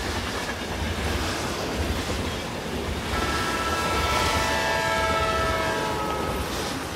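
A train running past with a steady rumble. About three seconds in, its multi-note horn sounds for about three and a half seconds, falling slightly in pitch before it fades.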